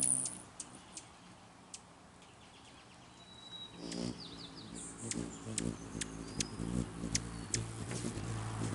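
Rufous hummingbirds giving many short, sharp high chip calls, with a brief twittering run about four seconds in. From there a low wing hum builds as the birds hover close.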